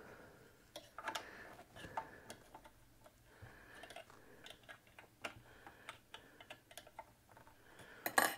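Faint, irregular light clicks and taps of small hand tools and plastic parts being handled during a device teardown, with a louder cluster of clicks near the end.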